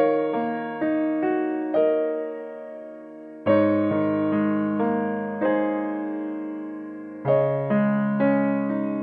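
Background piano music: slow single notes and chords that are struck and then ring away, with fuller chords about three and a half seconds and seven seconds in.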